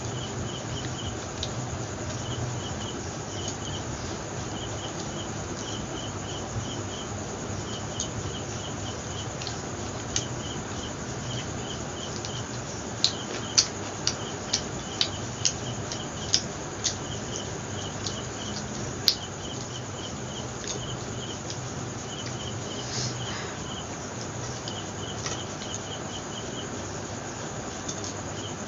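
A cricket chirping steadily in short runs of a few chirps, again and again. About halfway through comes a quick run of sharp clicks and taps.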